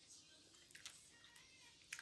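Near silence: room tone with a couple of faint short clicks.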